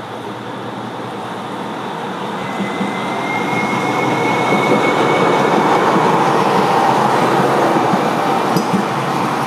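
Low-floor tram running on street track, coming closer and passing near by: the running noise of its wheels and motors grows louder over the first four seconds and stays loud as it goes by. A thin, high, steady whine sounds for a few seconds in the middle.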